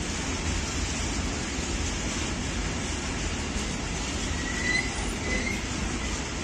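Freight train of tank wagons rolling past, a steady rumble and rattle of wagon wheels on the rails, with two brief high wheel squeals a little past halfway.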